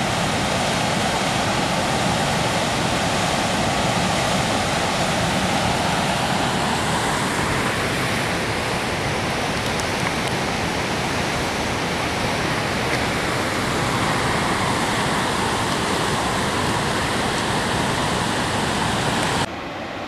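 Whitewater rapids pouring through a rocky gorge: a loud, steady rush of water. It drops suddenly to a softer rush just before the end.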